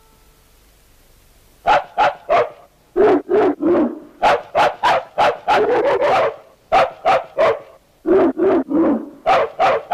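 Cartoon bears barking like dogs: quick runs of short yaps, several a second, whose pitch bobs up and down like a tune, starting about two seconds in.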